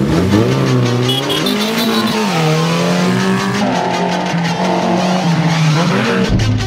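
Off-road 4x4 engine revving hard under load, its pitch climbing and falling, then held high for a few seconds. The sound changes abruptly about halfway through and again near the end.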